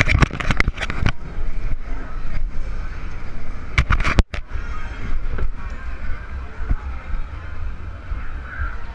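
Footsteps knocking and rattling on a fun house's metal walkway and grating: a quick run of them in the first second and another cluster about four seconds in. Under them is a steady low wind rumble on a GoPro action-camera microphone.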